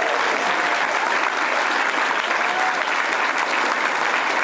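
An audience clapping steadily, with a few voices faintly heard over it.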